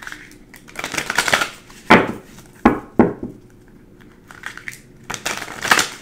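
Tarot cards being shuffled and handled: papery swishing twice, with a few sharp taps in the middle.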